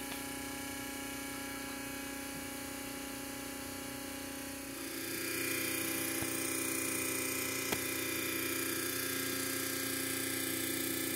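Electric diesel transfer pump running steadily while it fills a tractor's fuel tank through a hose and nozzle. About five seconds in, its tone shifts and it gets louder, and two brief clicks come a little later.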